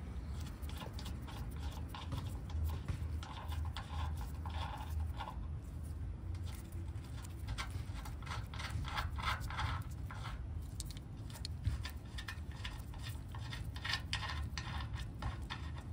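Steel hex bolts being unscrewed by hand from a trailer tongue's jack mounting plate: many small, irregular metallic scrapes and clicks of threads and fingers on the bolts, over a low steady rumble.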